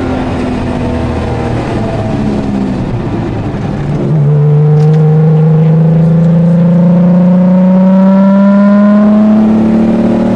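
Race-prepared Jaguar XJ6's straight-six engine heard from inside the cabin. For the first few seconds it runs at lower revs. About four seconds in it goes to full throttle and pulls hard, the revs rising slowly and steadily in one long climb, then easing off just before the end.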